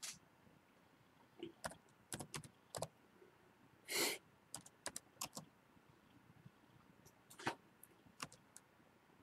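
Faint, irregular taps and clicks of a computer keyboard being typed on, with a short brushing swish about four seconds in.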